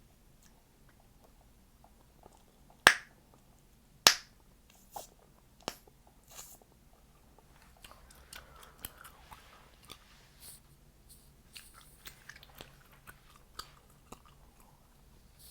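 Chewing gum popped loudly in the mouth twice, about a second apart, followed by a few smaller pops and then a stretch of soft, wet chewing and smacking clicks.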